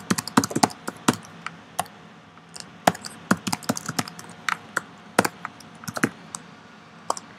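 Typing on a computer keyboard: irregular keystroke clicks, with a short pause about two seconds in.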